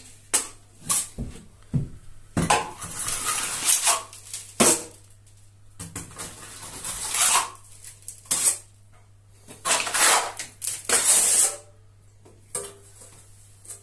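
Steel plastering trowel clinking and scraping against a hawk as base-coat backing plaster is loaded, then scraped and spread across a rough rendered wall in several separate strokes.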